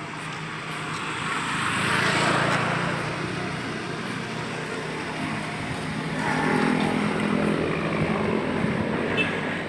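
Vehicle engine running with a steady low hum, growing louder twice, about two seconds in and again from about six to eight seconds, as vehicles move nearby.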